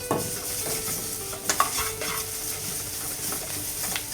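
Cherry tomatoes sizzling in oil in a pan while coriander pesto is stirred through them, with a utensil clicking against the pan a few times, loudest about a second and a half in.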